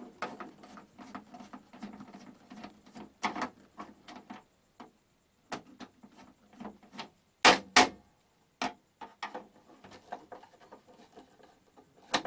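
Screwdriver turning out the screws of a CRT television's plastic back cover: irregular clicks and scraping of metal on plastic, with two louder knocks about halfway through.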